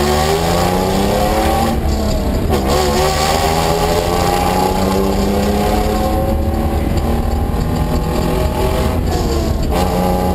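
Rally car engine heard from inside the cabin, accelerating hard away from the stage start: it revs up, drops at a gear change about two and a half seconds in, then climbs more slowly for several seconds before dropping at another change near the end.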